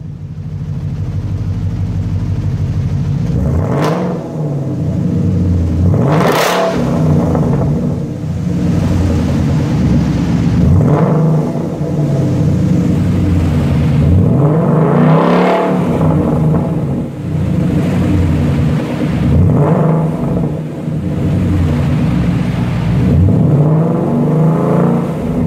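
2016 Ford Mustang GT's 5.0 L V8 through a muffler-deleted exhaust, idling and revved repeatedly. Each rev climbs and drops back to idle, about half a dozen times.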